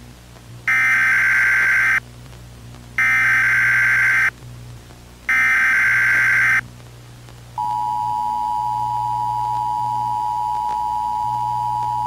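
Emergency Alert System broadcast tones. Three harsh data bursts of the SAME header, each a little over a second long with short gaps between them, are followed about seven and a half seconds in by the steady two-tone attention signal.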